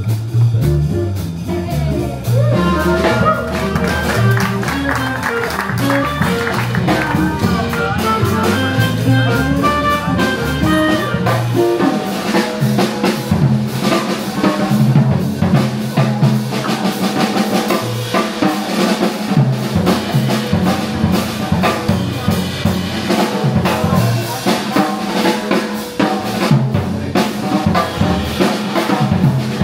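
Small swing band playing an instrumental break on upright bass, guitar and drums, with no vocals or clarinet. Deep bass notes lead for the first couple of seconds, then melodic lines come in, and busy drumming with rimshots stands out through the second half.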